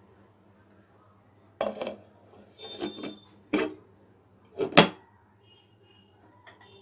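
A glass pot lid with a steel rim being set and settled onto a pan of biryani: several clinks and knocks over about three seconds, some with a short ring, the loudest near five seconds in. The pan is being covered to hold in the steam for dum cooking.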